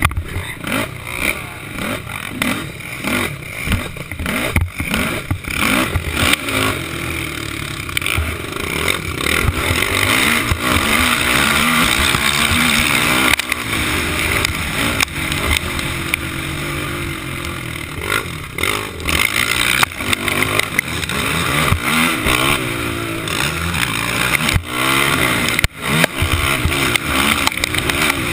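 Racing quad's engine revving up and down with the throttle, heard close from a helmet camera. Knocks and clatter from the rough track run through it.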